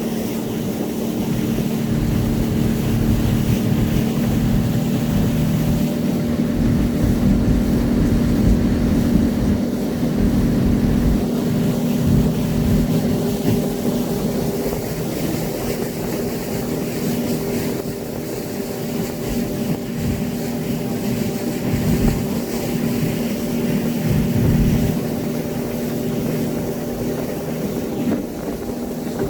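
Speedboat engine running steadily at speed, a constant drone with an uneven low rumble beneath it.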